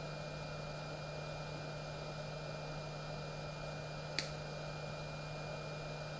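A single sharp snip about four seconds in, wire cutters cutting back a small brushless motor's lead wire, over a steady background hum.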